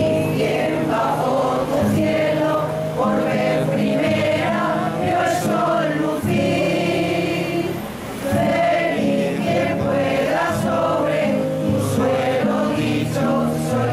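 Women's choir singing a song in unison, accompanied by a small guitar, with a short break between phrases about eight seconds in.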